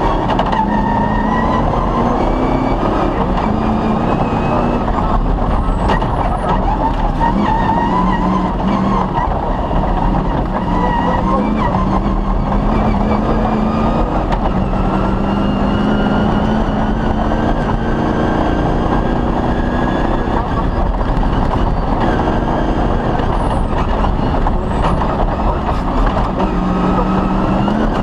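Off-road rally vehicle driven hard on a special stage, its engine revs climbing and dropping back again and again through gear changes, over heavy rumbling road and suspension noise.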